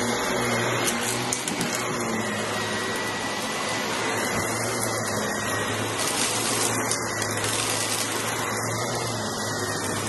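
Stick vacuum running steadily as its floor head is pushed back and forth through thick shag rug pile.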